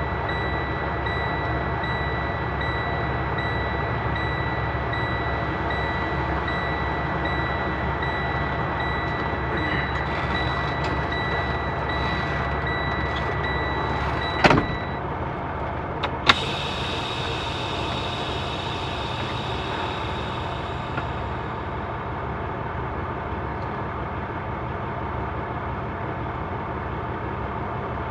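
Semi-truck's diesel engine idling steadily, heard from the cab, with a steady high tone that stops about halfway through. Just after, a sharp click, then a second click followed by a hiss that fades over about five seconds.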